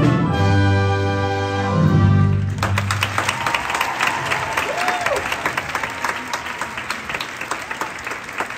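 Pit band of brass, reeds and drums holding a final sustained chord, which cuts off about two and a half seconds in. The audience then breaks into applause that slowly fades.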